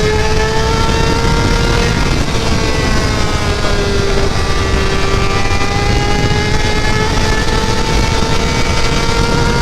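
Kawasaki ZX-6R inline-four with an SC-Project exhaust running at high revs under way, its note climbing slowly with a small dip about two seconds in. Heavy wind and road rush runs underneath.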